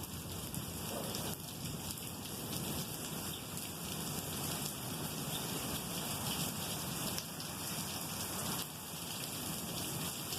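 Steady rain pattering on surfaces.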